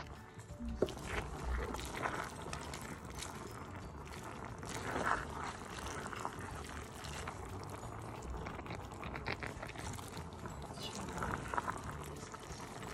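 Spaghetti being stirred and tossed with grated cheese in a metal pan: wet, sticky squishing of the noodles, with small irregular clicks and scrapes of the utensil against the pan.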